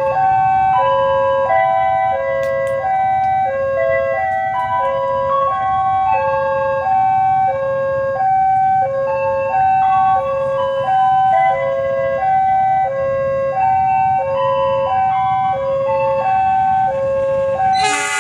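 Electronic railway warning alarm repeating a short pattern of stepped tones, about one cycle every second and a bit, signalling an approaching train, over a low steady rumble.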